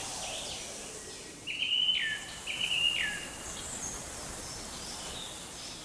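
Two whistled bird calls, each a held high note ending in a quick downward slide, over a faint steady forest background.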